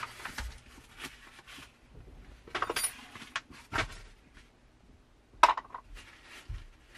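Small metal screws clinking as they are handled and dropped into a removed glove box: scattered light clicks, one ringing clink about three seconds in, a sharper click about five and a half seconds in and a dull knock soon after.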